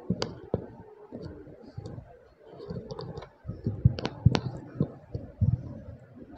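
Clicks and dull thumps of a microphone being handled on its stand as it is adjusted; the strongest knocks come about four seconds in.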